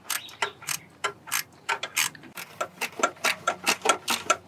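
Quarter-inch-drive ratchet with a 7 mm socket clicking in short strokes as it tightens a hose clamp at the turbocharger inlet, a few clicks a second, quickening in the second half.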